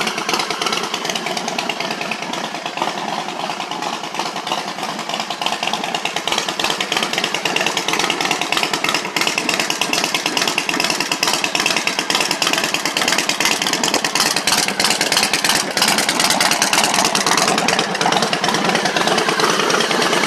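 Harley-Davidson motorcycle's V-twin engine running with a rapid pulsing beat, getting a little louder in the second half.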